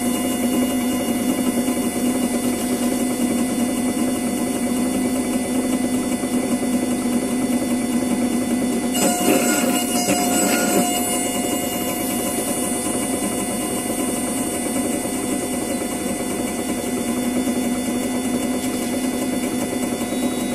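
Sirona inLab MC XL dental milling unit running steadily while it mills: a constant machine hum with several steady tones. About halfway through it turns briefly louder and harsher for a couple of seconds, then settles back.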